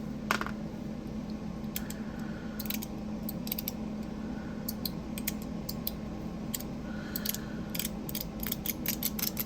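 Zirconium fidget slider (Metal Toyz DZ TopB) worked back and forth in the hand, its spring-and-ball detents clicking, singly and in quick irregular runs, over a steady low hum.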